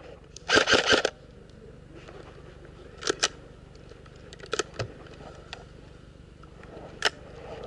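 Airsoft guns firing: a short rapid burst of sharp clicks about half a second in, then a few single shots spread through the rest.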